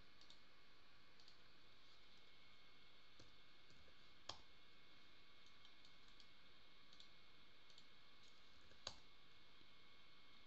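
Near silence with faint, scattered computer mouse clicks. Two of them are more distinct, one about four seconds in and another near nine seconds.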